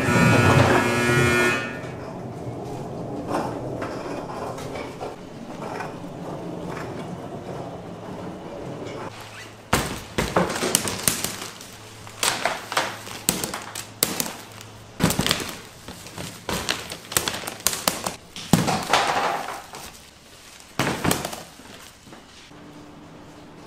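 Irregular knocks and clatters of hard objects being handled and set down, coming thick and fast from about ten seconds in, after a stretch of quieter background noise.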